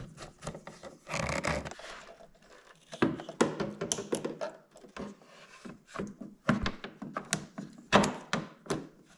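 Plastic turn-signal housing being pushed and clipped into a Honda Gold Wing GL1500 fairing: a run of irregular plastic clicks and knocks, with a scraping rustle about a second in and a sharper snap near the end.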